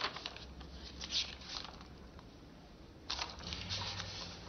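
Paper rustling: sheets handled in a few short scratchy bursts during the first second and a half and again about three seconds in, over a low steady room hum.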